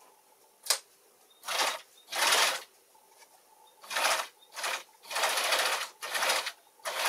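Electric sewing machine stitching quilting lines through fabric in short start-stop runs, about eight bursts of rapid stitching with pauses between. A single sharp click comes just before the first run.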